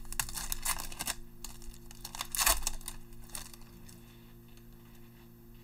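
Crinkly wrapper of a Select football card pack crackling and tearing as it is opened by hand, dense in the first second, with a couple of louder rustles a few seconds in. It then fades to faint handling sounds as the cards are pulled out.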